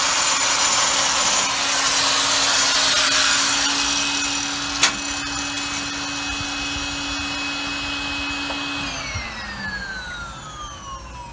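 Electric power tool running steadily at full speed with a constant hum and hiss, one sharp click about five seconds in; about nine seconds in it is switched off and winds down, its pitch falling as it slows.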